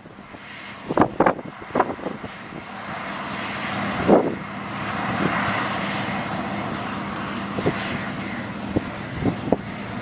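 Claas Lexion 780 combine harvester and Fendt 730 Vario tractor running steadily side by side while the combine unloads grain: a continuous machinery drone with a steady low hum. Wind buffets the microphone in short thumps several times.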